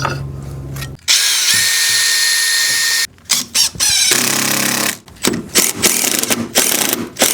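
Power tools running in short start-stop bursts: a steady motor hum, then about two seconds of loud cutting noise with a high whine, then several brief runs with gaps between them.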